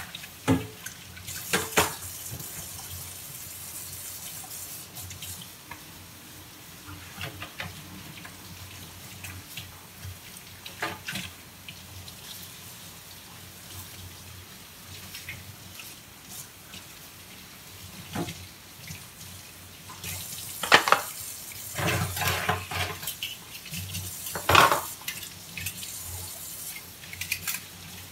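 Kitchen tap running into the sink while dishes are scrubbed and rinsed. Scattered clinks and knocks of a metal bowl and pots against the sink, a few louder clatters in the second half.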